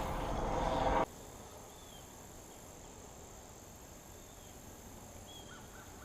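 Steady high-pitched buzz of insects, with a few faint short bird chirps every couple of seconds. A loud rush of noise cuts off abruptly about a second in.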